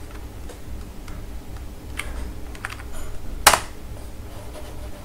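A few sparse computer keyboard keystrokes, the loudest about three and a half seconds in, over a low steady hum.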